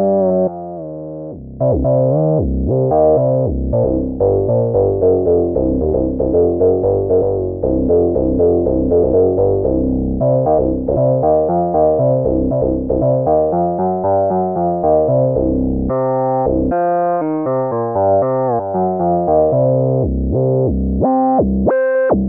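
Synthesizer sounds from a sample expansion for Native Instruments Maschine playing a busy phrase of short notes and chords over a bass line, breaking into a few separate stabs near the end.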